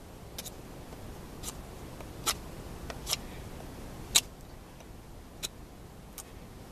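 Schrade SCHF10 survival knife carving a small wooden stick by hand: about seven sharp, irregularly spaced clicks and snaps as the blade bites in and chips come off, the loudest about four seconds in, over a steady low rumble.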